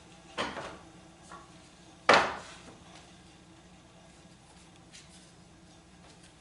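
Wooden parts knocking as they are handled and set in place: a knock about half a second in, a small tap, then a sharp, loud clack about two seconds in, and a faint tick later.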